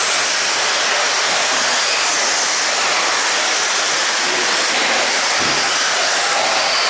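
A pack of 2WD radio-controlled off-road race cars running on a dirt track: a steady, even hiss of their motors and tyres, with no breaks.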